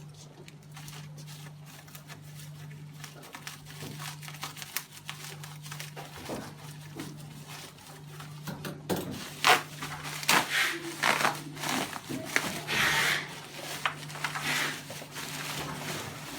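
Plastic packaging crinkling and rustling while computer accessories are handled, with scattered small clicks and knocks. It is denser and louder from about halfway through. A steady low hum runs underneath.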